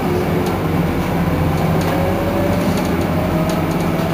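Iveco Crealis city bus running, a steady low drone with a faint whine that rises in pitch through the middle.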